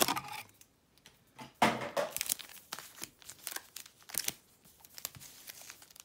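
2013 Fleer Retro football card pack wrappers crinkling as a stack of sealed packs is handled and laid out, in short irregular rustles, loudest a little before two seconds in.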